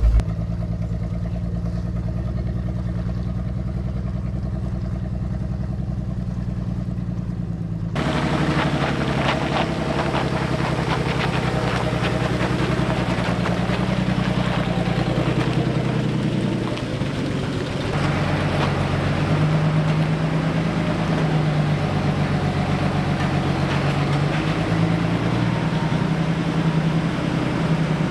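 Pickup truck engine running while driving, a steady low engine sound with road noise. It changes abruptly about eight seconds in to a louder, brighter mix, and shifts again around eighteen seconds in.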